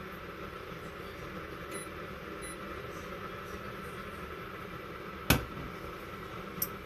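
A stainless steel saucepan set down on the glass top of an induction hob with one sharp clack about five seconds in, followed by a lighter knock, over a steady hum with a faint whine. Two faint short beeps from the hob's touch controls come about two seconds in.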